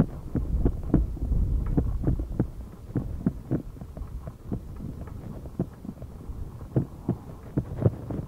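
Bicycle ridden along a concrete road: irregular dull knocks and rattles, two or three a second, with low wind rumble on the microphone that fades after the first couple of seconds.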